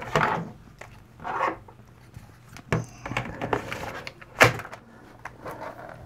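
Battery pack of a Dell Inspiron 2200 laptop being slid into its bay and snapped home. The plastic scrapes and knocks come with a few clicks, the sharpest about four and a half seconds in.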